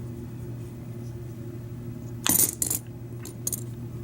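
Small metal lock parts clinking as the cylinder is handled during rekeying: a quick cluster of light metallic clicks a little over two seconds in, then a few fainter ticks, over a steady low hum.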